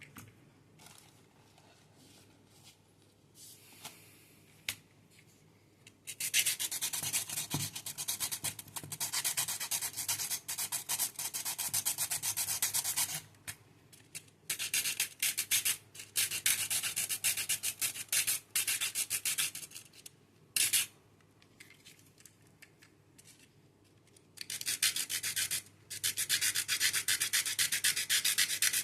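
Mini grinder abrading a Tamiya Mini 4WD plastic body or FRP plate, a gritty rubbing hiss in three long stretches with short pauses between.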